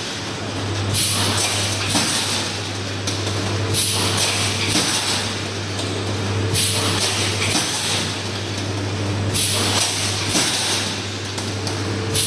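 A pneumatic wire mesh welding machine working through its weld cycle. A steady low hum runs throughout, with a burst of hissing air and knocks every few seconds as the electrodes clamp and weld and the mesh is pulled forward.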